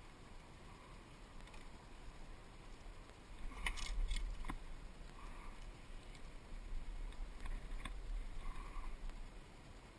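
Fishing reel and rod being worked while a small Australian bass is reeled in to the kayak: scattered clicks and light mechanical rattles, a cluster of them about four seconds in and a few more near the end.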